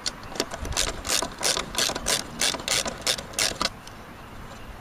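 A ratchet wrench working a bolt on the miter saw's bracket, loosening it to take the part off. It makes about ten quick ratcheting strokes, roughly three a second, which stop about a second before the end.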